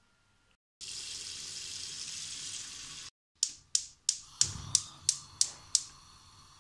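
Tap water running steadily into a pot for about two seconds. Then a gas hob's igniter clicks about eight times, roughly three a second, as the burner knob is held. The burner catches with a low thump partway through the clicking and then burns with a faint steady hiss.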